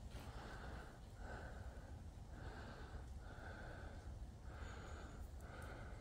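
A person's faint breathing close to the microphone: a run of soft, short breaths, about one a second.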